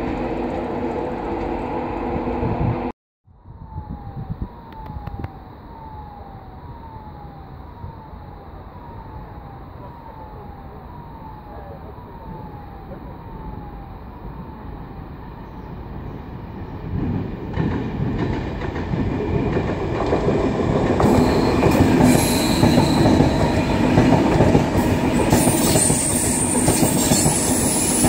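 A passenger train running at a station platform with a steady hum for about three seconds, then, after a cut, a train approaching from a distance. It grows louder over the last ten seconds and passes close by, with wheels rumbling over the rails and a high metallic squeal.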